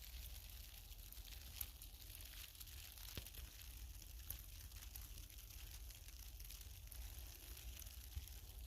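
Faint, steady low wind rumble with a light hiss from a snowstorm, and a few soft ticks.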